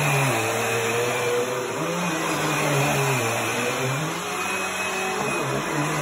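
Dirt Devil vacuum cleaner running while it is pushed back and forth over an old blanket. Its motor pitch rises and falls every second or two as the head moves and the suction load changes.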